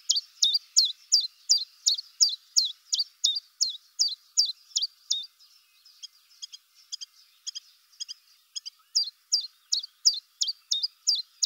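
A small songbird calling: a sharp, high note that drops in pitch, repeated steadily about three times a second, with a brief lull around the middle.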